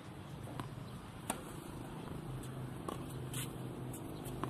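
Tennis ball struck by rackets and bouncing on a hard court: a few sharp, spaced knocks, the loudest about a second in, over a steady low hum.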